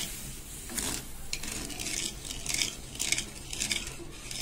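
Wooden spatula stirring boiling sugar syrup in an aluminium kadai, scraping across the pan in repeated strokes about twice a second. The syrup is being cooked down toward one-string consistency.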